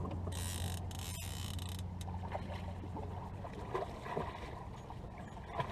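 Fishing reel being worked against a large steelhead on the line. There is a hiss for about a second and a half near the start, then light clicks and knocks, over a low steady hum.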